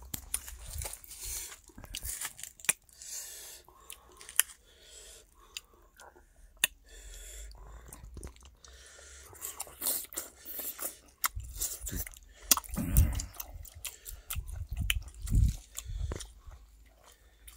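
A person chewing raw beef with weaver ants close to the microphone: a run of wet mouth sounds and sharp crunchy clicks. A few low thumps come in the second half.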